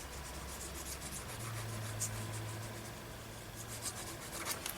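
Paper rustling and rubbing as sheets are handled and pressed down by hand, in scattered short scrapes, over a faint steady low hum.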